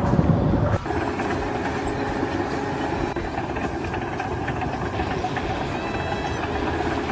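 Steady mechanical running noise: a continuous rumble with a low hum, and faint thin high squeals joining in over the second half.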